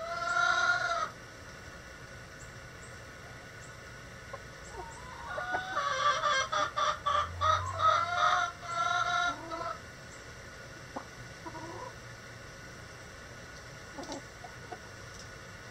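Chickens calling: a short call at the very start, then from about five seconds in a loud run of rapid repeated clucks, about three a second, lasting some four seconds.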